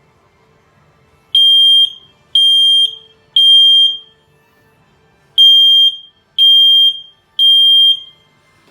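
Kidde i9010 smoke alarm sounding its test alarm: a loud, high-pitched beep in the temporal-three pattern, three beeps about a second apart, a pause, then three more.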